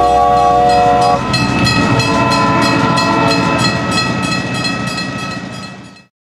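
Train sound effect: a train horn sounds a chord for about a second, then the train runs with a steady rhythmic clatter of wheels on rail joints that fades out to silence near the end.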